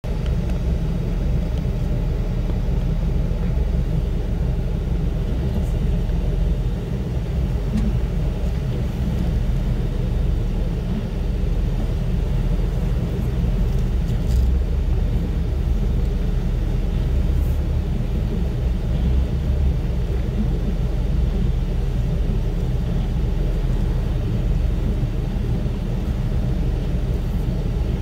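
Steady low rumble of the filming vehicle's engine and drivetrain, heard from inside the cab as it crawls slowly along an off-road trail.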